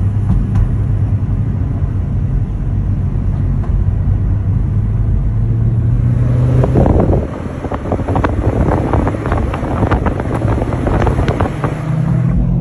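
Car engine and road noise heard from inside the cabin of a moving car, with a slight rise in engine pitch about five seconds in. In the second half there are irregular knocks and rustling.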